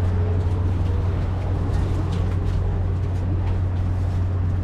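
Steady low rumble of a vehicle running, with a few faint clicks over it.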